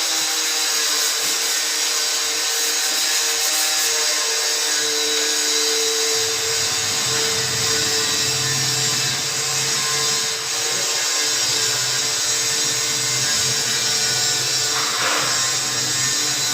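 A power tool running steadily, with a continuous high hiss and a steady whine.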